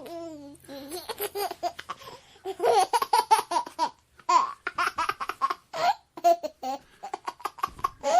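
A baby laughing in bursts of quick, short, high-pitched giggles, pausing briefly between bursts.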